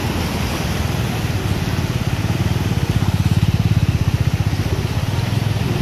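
Motorcycle engine puttering past close by, loudest about three to four seconds in, over a steady wash of traffic and tyres through floodwater.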